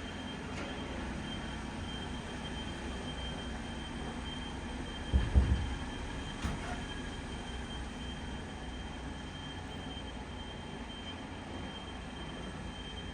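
Steady low mechanical rumble of heavy machinery with a faint steady high whine, broken about five seconds in by a short cluster of loud, deep thumps and a smaller one a second later.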